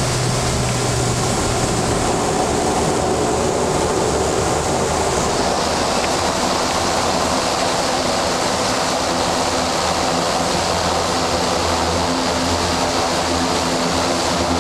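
Steady, loud drone of a small propeller airplane's engine and propeller, heard from inside the passenger cabin.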